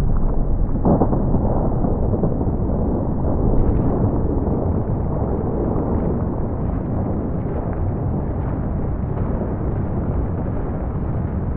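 Heavy continuous rumble of a controlled building demolition: explosive charges and high-rise towers collapsing, with a sharp crack about a second in.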